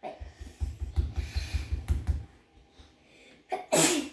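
Play-Doh being mixed by hand on a table: a quick run of soft thumps and rubbing for about two seconds, then a short, louder sound near the end.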